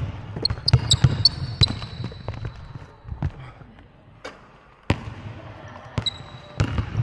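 Basketball bouncing on a court floor in a series of sharp thuds, with short high sneaker squeaks in the first two seconds and again near the end. The middle goes quieter, then a hard bounce comes about five seconds in.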